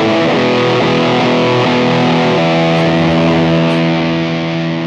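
Les Paul electric guitar through a Simplifier MK2 amp-simulator pedal on a high-gain setting, with a distorted chord ringing. The notes shift over the first couple of seconds, then one chord sustains and slowly fades near the end. The power-amp stage is driven into clipping.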